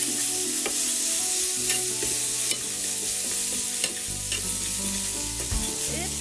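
Food sizzling as it fries in a pan, a steady crackling hiss with occasional short clicks.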